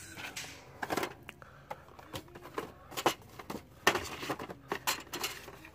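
Cardboard toy boxes being handled and shifted on a store shelf: an irregular string of knocks, taps and scrapes.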